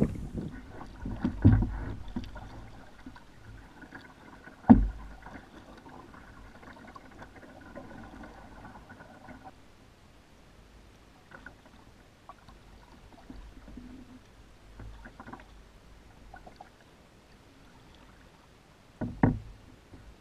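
Quiet paddling in a lightweight Hornbeck solo canoe: a double-bladed kayak paddle dipping and dripping, with a few sharp knocks against the hull, the loudest about five seconds in and another near the end.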